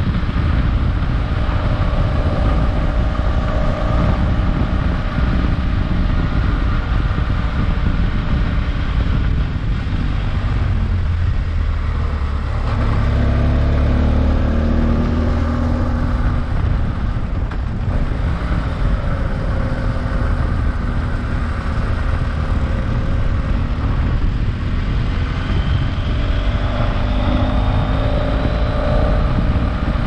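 BMW F800GS's 798 cc parallel-twin engine with its original exhaust, heard from the saddle while riding. The engine note rises and falls with the throttle, with a climbing note in the last few seconds.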